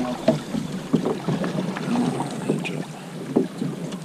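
Wind buffeting the microphone on a small boat at sea, an uneven rushing with a few short knocks scattered through it.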